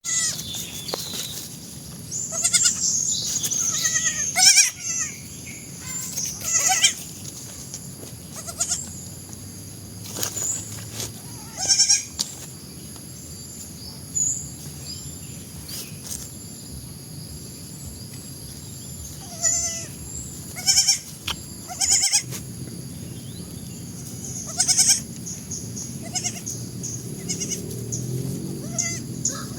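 Goats bleating: about a dozen short, quavering calls spread out with pauses between them.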